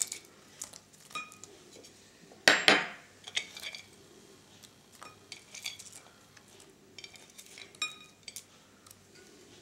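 Scattered clinks and taps of a white ceramic plate knocking against a glass salad bowl as walnuts are pushed off it onto the salad. The loudest knock comes about two and a half seconds in, and some clinks ring briefly.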